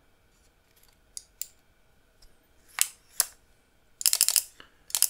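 Relay board on a DIY toy gun clicking as it fires: a couple of faint clicks, then two sharp single clicks about three seconds in. About four seconds in it breaks into a fast rattle of clicks, like automatic fire.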